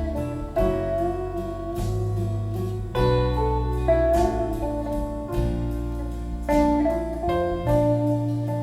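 Folk music with guitar over a deep, sustained bass line, played back through Klipsch The Nines powered speakers.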